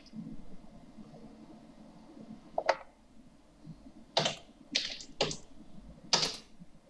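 Computer keyboard keys pressed one at a time as a number is typed in: about five separate sharp clacks, most of them bunched in the second half.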